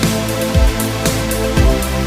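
Electronic intro music with a steady beat and a deep kick drum about twice a second.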